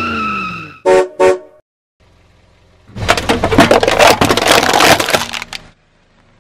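Two short car-horn toots about a second in. From about three seconds a car tyre rolls over a row of full aluminium drink cans, crushing them with a dense crackling crunch for over two seconds; the cans burst and spill.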